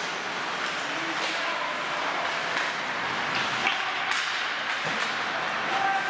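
Ice hockey play in a rink: a steady din with sharp clacks of sticks and puck, the loudest about four seconds in, and a few brief shouts.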